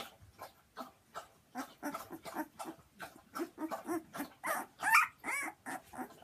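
Very young puppy whimpering and squeaking in a string of short cries, several a second, rising to louder, higher-pitched squeals about five seconds in.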